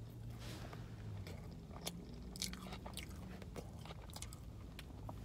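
Person biting and chewing food close to the microphone, with scattered small crunches and wet mouth clicks.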